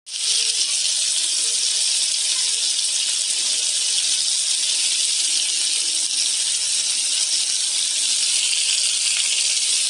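Whole squid sizzling on a hot pan: a steady, loud hiss.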